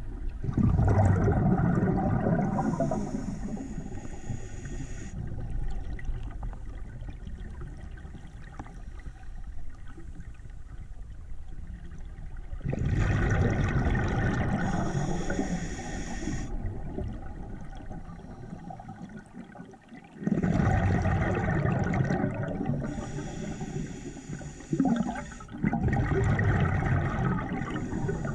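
Scuba diver breathing through a regulator underwater: repeated gurgling rushes of exhaled bubbles, each lasting a few seconds, with quieter stretches and a thin hiss between them.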